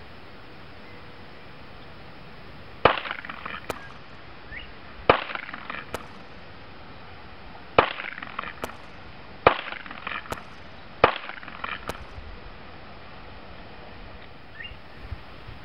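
Five single shots from a Sig Sauer Mosquito semi-automatic .22 LR pistol firing CCI Standard Velocity rounds, fired slowly one at a time about two seconds apart. Each is a sharp crack with a short echoing tail.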